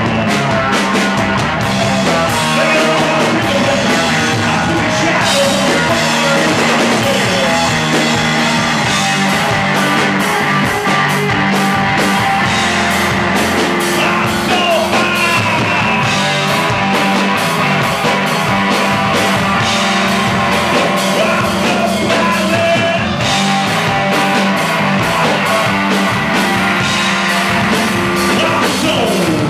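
Live rock band playing: electric guitar, bass guitar and drum kit, with a man singing lead vocals, loud and continuous throughout.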